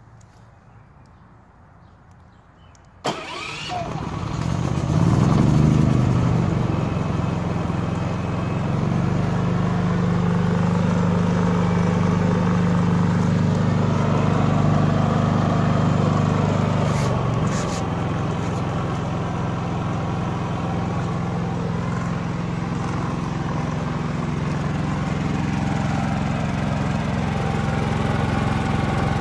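Westinghouse iGen4500 inverter generator starting about three seconds in, swelling up to speed over the next couple of seconds, then running steadily, easing off slightly about 17 seconds in.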